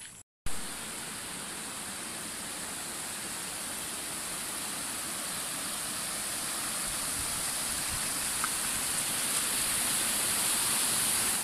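Floodwater rushing over rocks and gravel across a washed-out road: a steady rushing noise that grows gradually louder.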